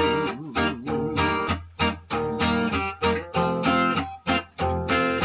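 Acoustic guitar strummed in a steady rhythm of chords, an instrumental passage between sung lines.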